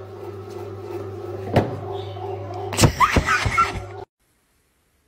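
Bread machine motor humming steadily as it kneads a ball of dough. There is a sharp knock about a second and a half in and a cluster of thumps near three seconds, as the dough hits the pan. The sound stops abruptly about four seconds in.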